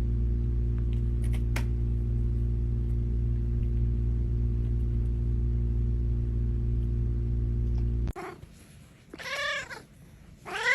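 A steady low hum that stops abruptly about eight seconds in. A cat then meows twice, each meow rising and then falling in pitch.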